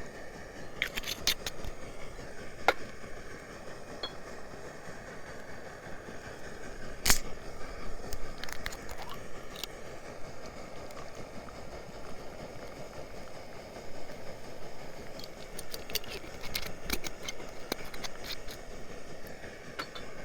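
Scattered light clicks and clinks of small objects being handled, over a steady background noise.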